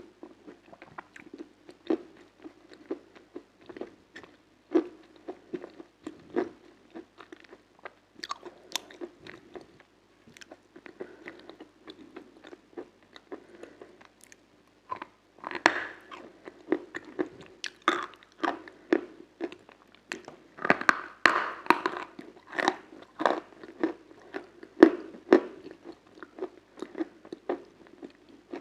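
Close-miked biting and chewing of a crunchy food, a steady run of sharp crunches that grows louder and denser about halfway through.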